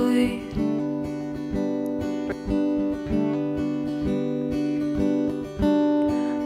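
Background music: a strummed acoustic guitar playing over sustained chords.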